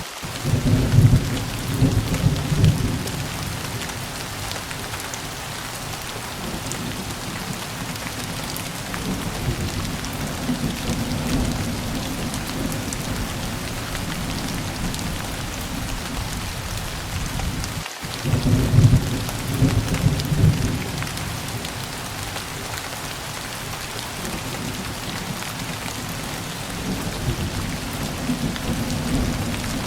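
Steady rain falling, with two low rolls of thunder: one about a second in and another about eighteen seconds later.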